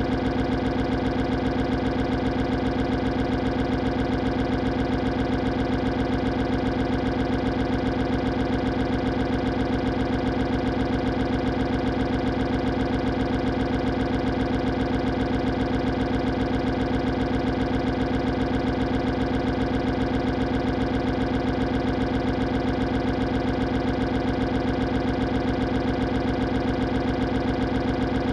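Cartoon stomach-growl sound effect, drawn out into one unbroken, steady rumble with a fast flutter and an unchanging pitch.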